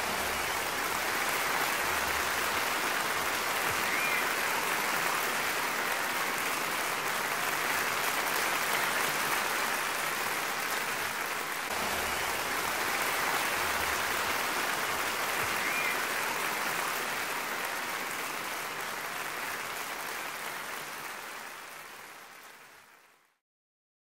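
Steady rushing noise like surf or running water, with a faint short bird-like call twice, fading out to silence near the end.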